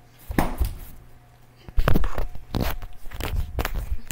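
Handling noise of a camera being picked up and moved against clothing: scraping, rustling and knocks, a short burst about a third of a second in, then a busier run from about two seconds in.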